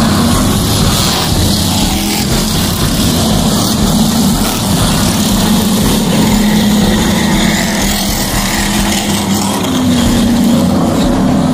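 A field of NASCAR Whelen Modified race cars circulating the oval, their V8 engines making a loud, steady drone that rises slightly near the end.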